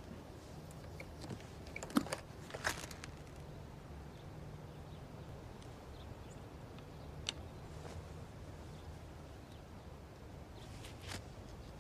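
Faint handling noises of a violin case, violin bow and cloth strap: a few light clicks and rustles, most of them about two to three seconds in, with single clicks near the middle and near the end, over a low steady hum.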